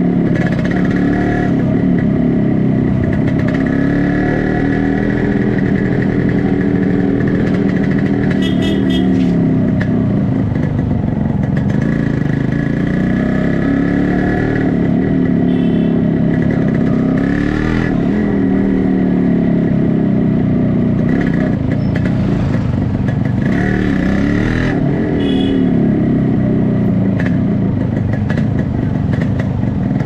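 Yamaha RXZ 5-speed's two-stroke single-cylinder engine heard close at the silencer while riding, its exhaust note rising and falling again and again as the throttle opens and closes.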